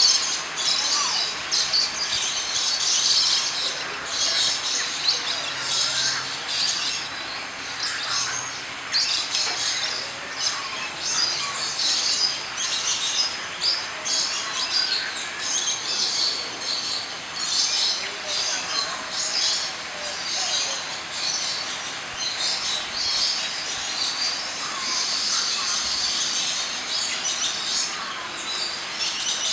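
Many birds chirping and calling together in a dense, continuous chorus of short, high-pitched notes.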